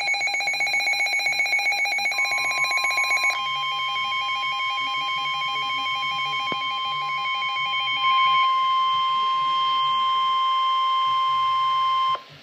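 Emergency alert tones: fast pulsing electronic tones that change pattern about three seconds in. About two seconds in they are joined by a steady single high tone, the weather-radio attention signal, which grows louder around eight seconds in as the pulsing stops, then cuts off suddenly near the end.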